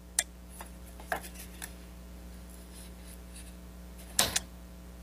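Faint clicks and scraping of an object being handled, then two sharper clicks close together about four seconds in.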